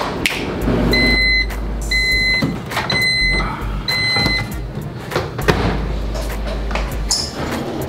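Built-in microwave oven beeping four times to signal the end of its cooking cycle, each beep a steady high tone about half a second long. Afterwards come clicks and knocks as the door is opened and a dish is taken out.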